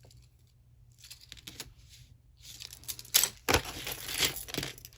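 Jewelry being handled in its packaging: crinkling and rustling with small clicks, sparse at first and busier from halfway on, with a sharp click about three seconds in.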